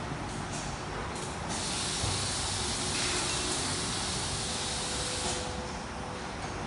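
Workshop background noise with a steady high hiss. Two short hisses come about half a second and a second in, then a louder hiss lasts about four seconds.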